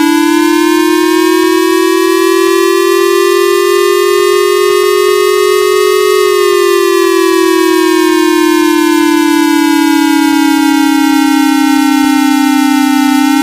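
Loud electronic emergency-alert siren tone, one steady pitched wail that slowly rises for about six seconds, then falls back and cuts off abruptly at the end. It is the alarm that opens an emergency alert broadcast.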